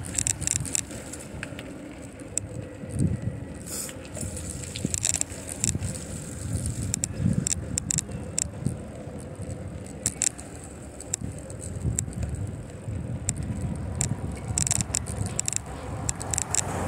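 Riding a bicycle: a continuous low rumble of wind and rolling tyres that swells and fades, with frequent sharp rattles and clicks from the bike over bumps, thickest near the start and again near the end.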